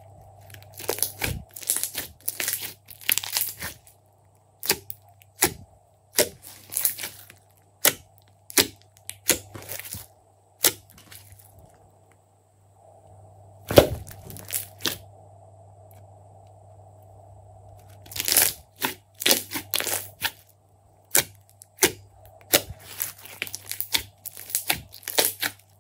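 Glossy slime being squeezed, folded and stretched by hand. It makes quick runs of sharp wet clicks and crackling pops as trapped air bursts, with a few short pauses between handfuls.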